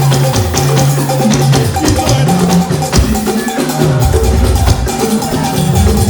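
Church band playing an instrumental passage: drums and percussion striking steadily over a bass line that moves from note to note, with a held keyboard-like tone above.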